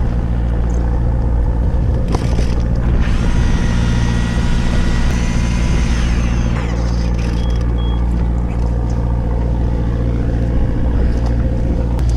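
Fishing boat's engine running with a steady low hum. A higher, thin whir joins for a few seconds in the middle, then fades.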